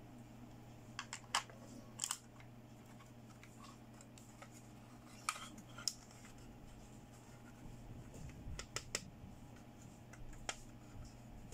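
Hard plastic clicks and taps from a children's toy makeup palette and its lip gloss tube being handled and fitted together. They come singly and in quick pairs every second or two, over a low steady hum.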